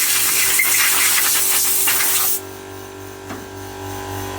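A loud, even spraying hiss that cuts off suddenly about two and a half seconds in, leaving a steady hum with a few steady tones.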